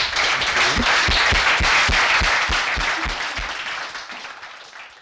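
Audience applauding, fading out toward the end.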